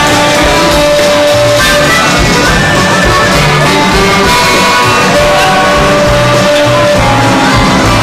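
A live band playing loud, steady music.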